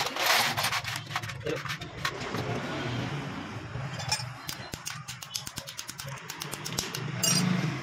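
Small metal motorcycle clutch parts being handled, with a run of quick light clicks through the second half, over a steady low hum.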